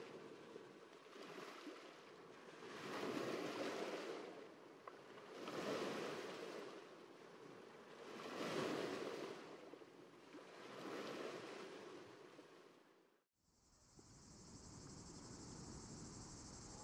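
Small waves breaking and washing up a beach, swelling and fading about every two and a half to three seconds. Near the end the sound cuts off and a steady high hiss takes over.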